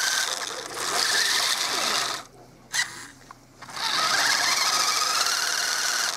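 Toy radio-controlled monster truck's electric motor and gears whining as its wheels spin on ice: the truck is stuck and cannot move. The whine rises with the throttle, drops away for about a second and a half near the middle with a single click, then rises again.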